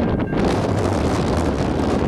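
Freight train rolling past, a steady rumble mixed with heavy wind noise buffeting the microphone.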